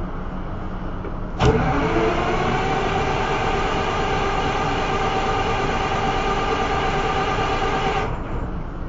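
A motor's whine starts suddenly about a second and a half in, rises briefly in pitch, then holds a steady tone before cutting off about eight seconds in. Under it runs a steady low machinery hum.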